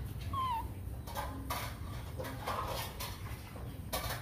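Baby monkey eating from a metal spoon: one short squeaky chirp about half a second in, then scattered clicks and smacks of the spoon at its mouth, over a steady low hum.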